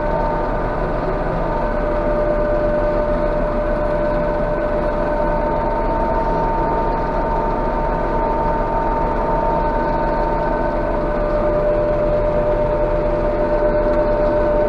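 Claas Jaguar 830 self-propelled forage harvester running steadily under load as it picks up a grass windrow, heard from inside its cab: a constant engine drone with a steady high whine over it.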